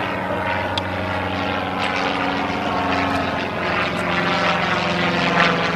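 A Cessna 150's stock 100 hp four-cylinder engine and propeller running steadily, with its pitch dropping slightly about four seconds in.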